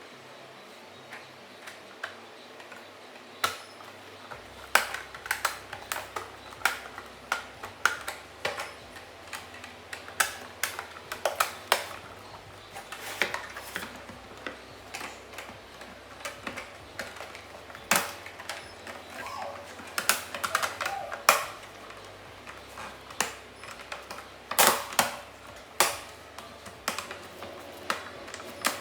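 Irregular clicks, taps and knocks of ring light parts being handled and fitted together by hand, with a few sharper snaps standing out.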